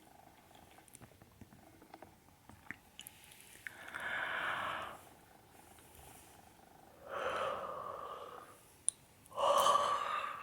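A woman yawning aloud three times, each a drawn-out breathy voiced yawn of about a second or more. The last yawn is the loudest.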